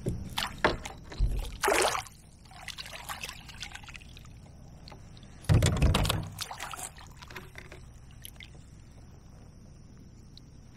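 Water splashing as a hooked largemouth bass is scooped into a landing net beside a kayak: a few short splashes, then a louder splash with water pouring off about five and a half seconds in as the net and fish come out of the water.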